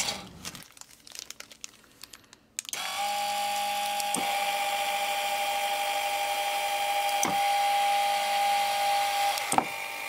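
Two Firgelli classic 12-volt linear actuators running, a steady electric motor-and-gearbox whine that starts after a couple of seconds of soft clicking and keeps going with the remote buttons released, in sustaining mode. A few sharp clicks land during the run.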